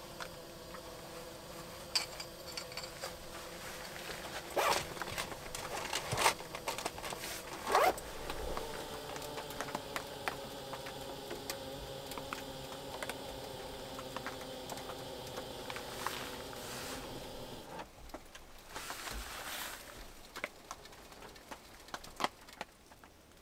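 Hot water poured in a thin stream from a small aluminium kettle into a paper drip-coffee bag hung on a metal mug, with sharp clinks and rustles of handling about five to eight seconds in.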